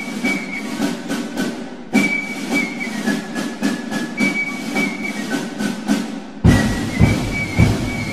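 Mooney M20K Encore's turbocharged six-cylinder engine at takeoff power during the takeoff roll, a steady drone, with rhythmic music over it. About six and a half seconds in the engine sound suddenly gets deeper and heavier.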